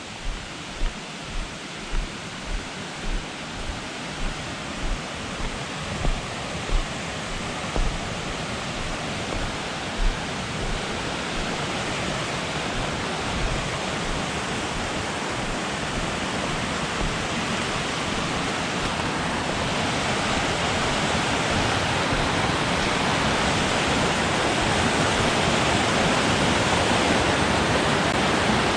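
Rain-swollen creek rushing over a waterfall, a steady rush of white water that grows louder throughout. In the first ten seconds a run of low thuds comes about every two-thirds of a second.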